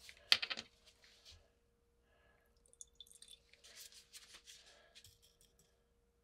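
A bottle and its cap are handled with a sharp click, then a small amount of liquid is poured into a small glass jar. Near the end a brush is dabbed and stirred in the jar with light clicks against the glass.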